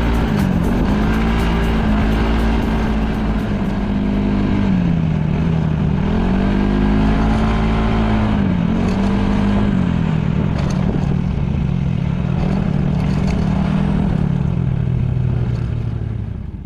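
Yamaha Majesty S scooter's single-cylinder four-stroke engine running under way on a winding mountain road, its note dipping and climbing back about three times as the throttle is eased and reopened through bends, over steady wind rumble on the camera microphone.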